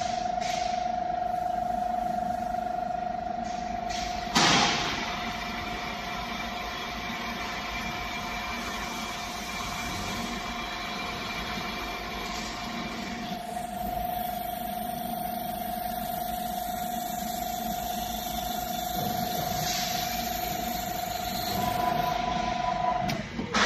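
Drilling head of a CNC plasma cutting table drilling a metal plate: the spindle motor runs with a steady whine over machine noise, with one sharp clank about four seconds in. The whine cuts off near the end.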